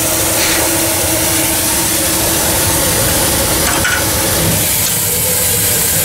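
Steam blower on a wood-fired vertical steam boiler: a jet of steam up the stack hissing loudly and steadily, drawing air up through the fire. A faint low tone runs under the hiss for about the first half.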